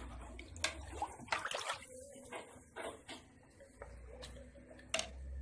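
Milk mixture for béchamel being stirred in a pot on the stove: irregular scrapes and light clinks of the utensil against the pot, with the liquid swishing.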